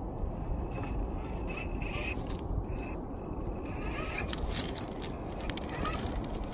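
RC4WD Trailfinder 2 scale crawler truck creeping over loose rocks in low gear: its tyres crunch and scrape on the stones with scattered clicks, a thin motor and gear whine rising in short spells, over a steady low rumble.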